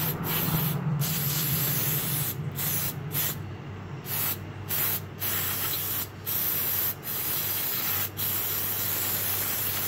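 Aerosol brake cleaner spraying through its straw nozzle in long hisses with several short breaks, degreasing a motorcycle kickstand.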